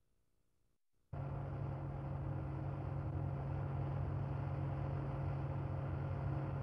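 Car driving at motorway speed: steady road and engine noise heard from inside the car, starting about a second in after a moment of silence.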